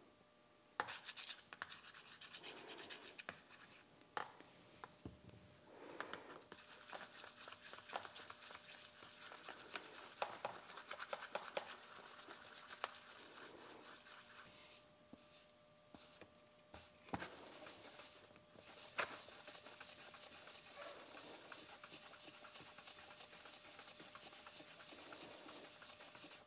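Faint scraping and rubbing of a small metal spoon stirring red lead pigment powder and mineral spirits in a plastic container, mixing them into a paste.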